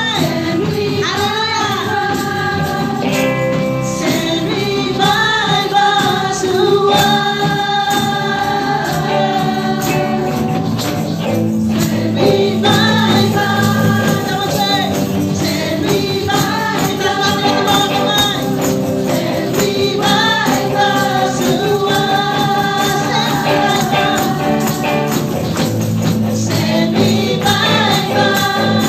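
Live worship music: a group of women singing a gospel praise song into microphones over an amplified band with electric guitar, with a tambourine shaken along.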